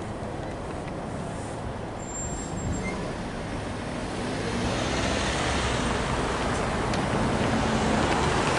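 Road traffic moving off: car engines and tyre noise on the road, building steadily louder in the second half as cars approach and cross.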